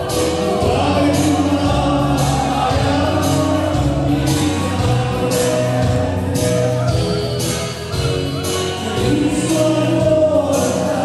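Live song: a man singing through a microphone and PA over amplified band music with a steady drum beat.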